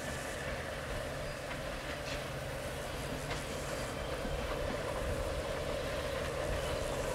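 Diesel-hydraulic LDH locomotive approaching at low speed with a passenger train, its engine running with a steady drone that grows slowly louder.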